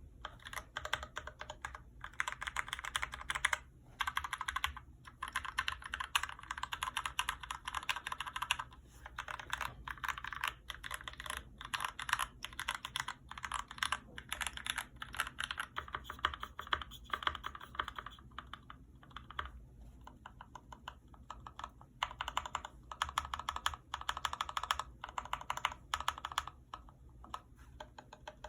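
GMMK Pro mechanical keyboard being typed on fast: lubed Gateron Clear linear switches on an aluminium plate with ABS keycaps give a dense stream of key clacks. The typing thins out for a few seconds about two-thirds of the way through and picks up again near the end.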